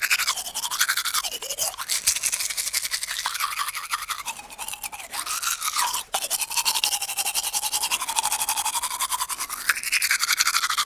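Teeth being brushed with a toothbrush: fast, continuous scrubbing whose hiss keeps changing in tone.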